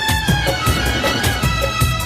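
Background music: an Indian-style tune with a gliding melody over a steady beat of about four thumps a second.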